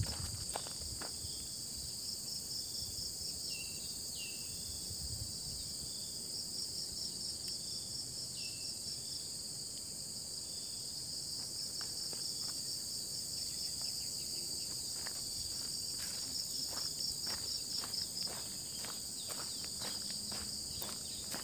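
A dense chorus of tropical insects, a steady high-pitched buzzing with a rapid pulsing note in it. A few short bird chirps come in the first half, and footsteps on grass and dirt are heard at the start and again through the last few seconds.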